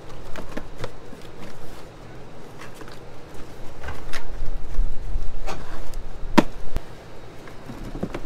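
Cardboard produce boxes being handled and folded, and washed cucumbers tipped from a plastic basket into a cardboard box: scattered knocks, rustles and thuds, the sharpest about six seconds in.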